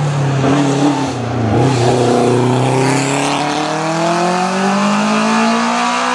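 Hillclimb race car engine pulling hard out of a hairpin: after a brief dip about a second and a half in, the revs climb steadily in one long rising note as the car accelerates away up the hill.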